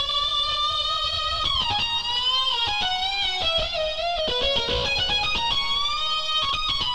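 Korg Nautilus synthesizer playing a combination patch: a single melodic lead line that moves between notes with pitch bends and slides.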